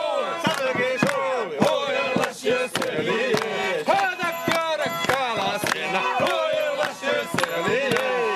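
A group of men and women singing loudly together and clapping in time, about two to three claps a second: Mari wedding singing.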